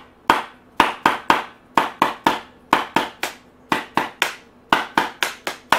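Wooden spoon drumming on the top of an unopened cardboard oatmeal canister still full of oats, a drum-like tapping in short runs of about four strikes a second.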